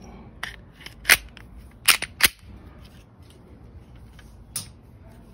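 Glock 26 pistol being reassembled: its slide is fitted back onto the polymer frame, giving a handful of sharp mechanical clicks and snaps, the loudest about one and two seconds in.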